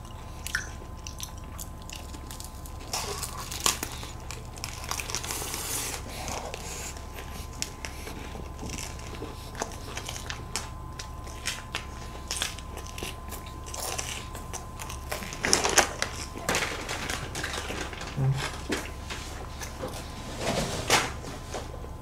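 Close-miked eating of wafer ice cream cones: scattered crisp bites and chewing, with the paper cone sleeve crinkling as it is peeled back.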